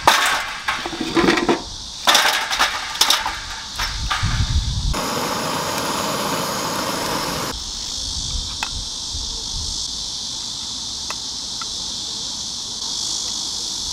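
A butane torch hissing for about two and a half seconds, about five seconds in, as it is played on firewood, over a steady high drone of insects. Irregular knocks and clatter of handling come first.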